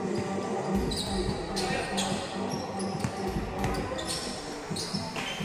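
A basketball bouncing on a hard court in repeated thumps during a game, with short high squeaks and players' voices around it.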